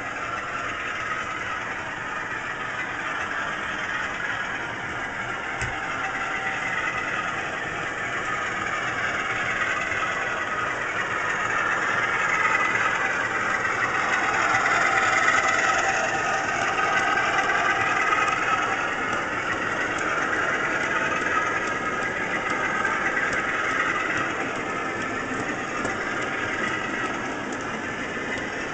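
DCC sound decoder in an OO gauge Bachmann Class 47 model locomotive playing a Class 47/0's Sulzer diesel engine through its small speaker, thin with little bass. The engine ticks over, revs up from about ten seconds in to a peak around the middle, then drops back to idle.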